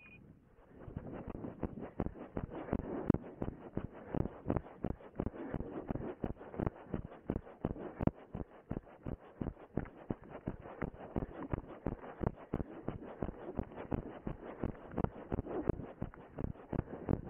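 A runner's footsteps on grass, a regular thudding at about three steps a second, picked up through the camera she wears, over a steady noise.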